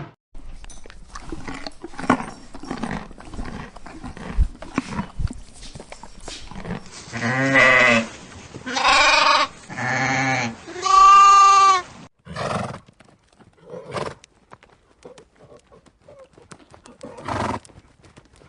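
Bleating farm animal: scattered rustling and knocking at first, then four loud bleats in quick succession around the middle, the last one the longest, followed by a few shorter, softer bleats.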